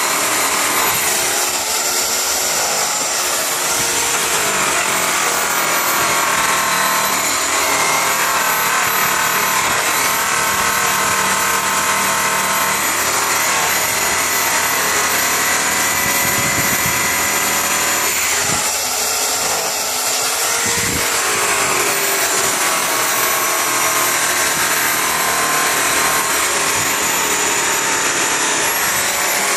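Handheld angle buffer running steadily, its buffing wheel pressed against an aluminum truck rim: a continuous motor whine, wavering slightly in pitch, over the hiss of the pad rubbing the metal.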